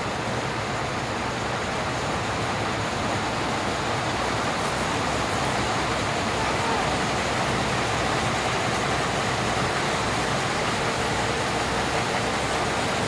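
TU7 narrow-gauge diesel locomotive's V12 diesel engine running steadily as the locomotive moves slowly during its run-round, a low engine rumble under a noisy hiss.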